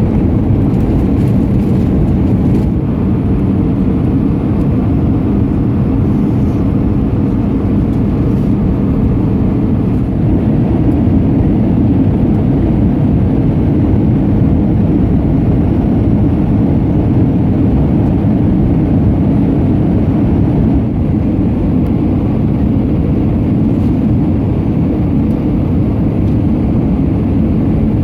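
Steady roar of jet engines and airflow inside the cabin of an Airbus A320-200, mostly deep, with a faint steady hum running through it.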